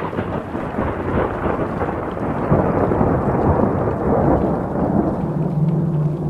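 Thunderstorm: rolling thunder rumbling over steady rain. A low steady hum comes in about five seconds in.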